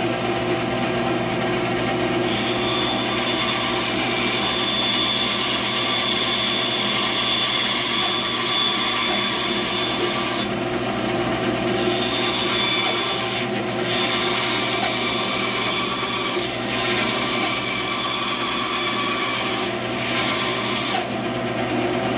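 Benchtop band saw running steadily, its blade cutting a cedar board. The higher cutting noise starts about two seconds in and runs unbroken to about ten seconds. After that it comes in shorter cuts with brief breaks as the piece is turned and fed again.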